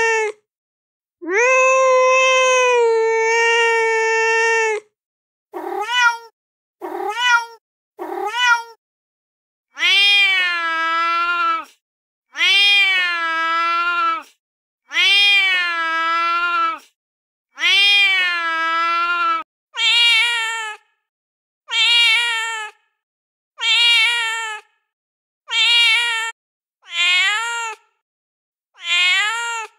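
Recorded domestic cat meows played one after another from a cat-sound app. First comes one long, steady meow, then three short rising mews, then four drawn-out wavering meows of about two seconds each, and finally several shorter meows that bend up and down in pitch.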